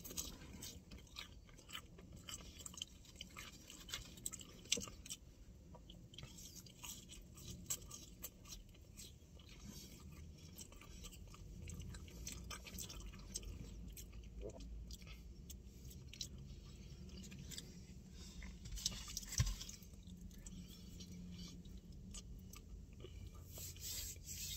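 A person chewing french fries, faint wet mouth noises and small clicks, in a car's closed cabin.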